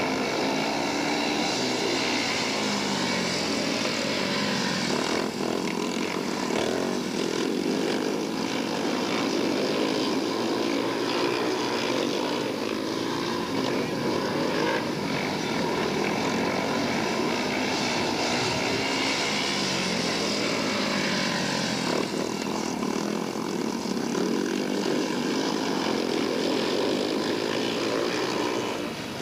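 Speedway motorcycles' single-cylinder methanol engines racing around the oval. Their pitch rises and falls again and again as the bikes drive out of the bends and sweep past.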